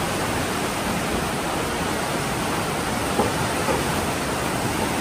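Steady rushing of a fast mountain creek's whitewater pouring through a narrow rock canyon, an even, unbroken noise. Two faint knocks sound a little after three seconds in.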